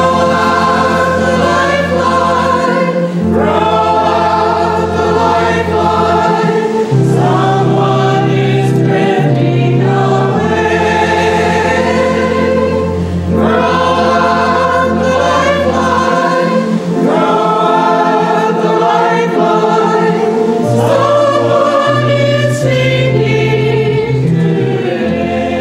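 Choral music: a choir singing slow, long-held chords over a low steady bass.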